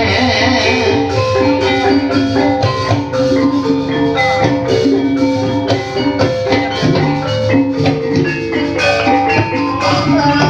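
Javanese gamelan music for ebeg: mallet-struck pitched percussion plays a busy run of short notes over steady drum strokes.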